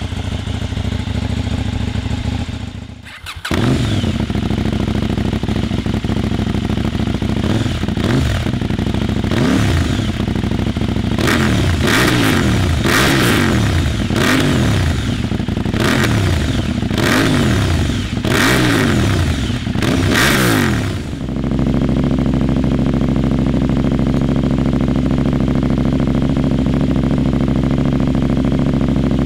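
KTM 790 Duke's 799 cc parallel-twin engine idling through its stock silencer, then, after a short break, revved in repeated quick throttle blips through a Fuel Diablo micromini silencer with a decat link pipe and the baffle fitted. About 21 seconds in, after another short break, it idles steadily through the same silencer with the baffle removed.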